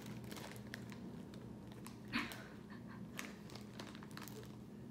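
Plastic snack wrappers crinkling as they are handled, a scattered string of small crackles, with one short louder rustle about two seconds in.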